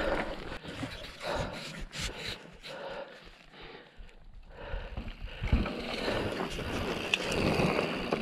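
Mountain bike riding over a dirt trail: tyre noise on loose ground with scattered clicks and rattles from the bike. The sound eases off for a moment in the middle and picks up again about halfway through.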